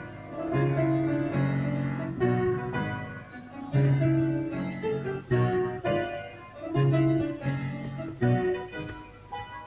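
Keyboard music: held notes and chords played in short phrases, one after another.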